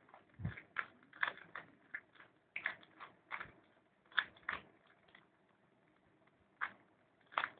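Plastic layers of a 3x3 puzzle cube clicking and clacking as they are twisted by hand, in quick irregular turns, with a pause of about a second and a half past the middle.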